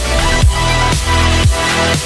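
Background electronic dance music with a steady beat of about two kick-drum thuds a second over held synth tones.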